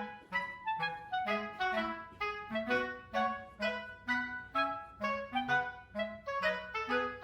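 Background music: a light instrumental tune of short, separate notes over a bass line.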